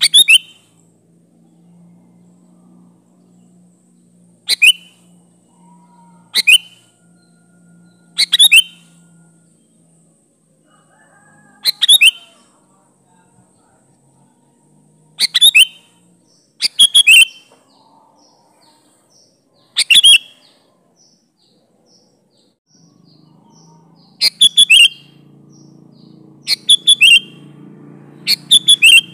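Sooty-headed bulbul (kutilang) calling: short, loud, chirpy phrases that drop in pitch, repeated every two to four seconds, some coming in quick pairs.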